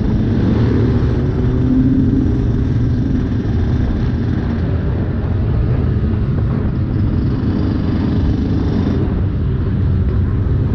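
Yamaha YZ125 two-stroke dirt bike engine running while under way, under a heavy, steady rumble of wind on the bike-mounted microphone.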